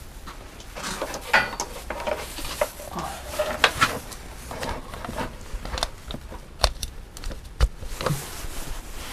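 Rustling and scattered knocks and sharp clicks of power cords being handled at a workbench.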